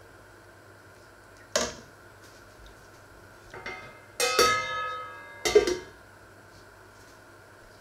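Stainless steel pot lid and metal utensils clanking: a sharp clatter about a second and a half in, then the steel lid set down on the pot with a ringing clang that dies away over about a second, and a last clank a second later.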